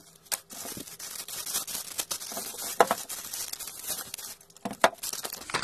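Clear plastic bag crinkling and crackling as it is pulled off a tripod, with irregular sharp crackles, the strongest about a third of a second in, near the three-second mark and near the end.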